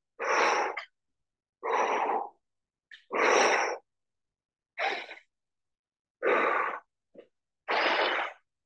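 A man exhaling hard through his mouth, about once every second and a half, six breaths in all: heavy breathing from exertion during a dumbbell lunge set.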